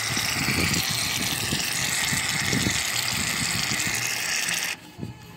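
Aerosol can of shaving cream spraying foam in a steady hiss, which cuts off suddenly shortly before the end.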